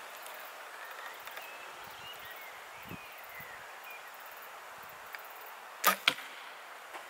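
A 55-pound compound bow shot: a sharp snap as the string is released about six seconds in, and a quarter-second later a smaller crack as the arrow strikes the target.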